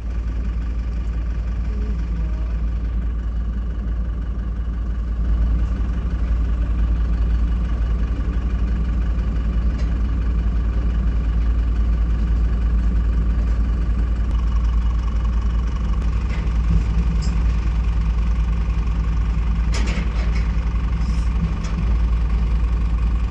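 Heavy diesel engine running steadily at idle with a deep, even drone, rising slightly in level about five seconds in.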